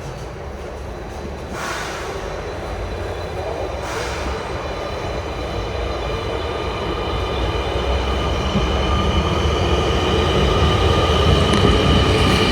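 Electric passenger train running on the rails close by and growing steadily louder, with two short hisses in the first few seconds and a steady electric motor whine building over the second half.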